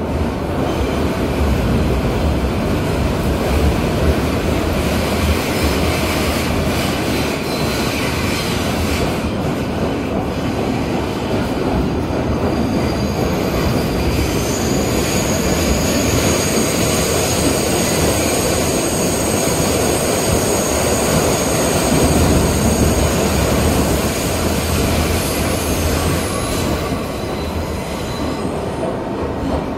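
A New York City Subway 3 train running, heard from inside a car: a steady rumble of wheels on rail. From about halfway through until near the end, high-pitched wheel squeal rides over it.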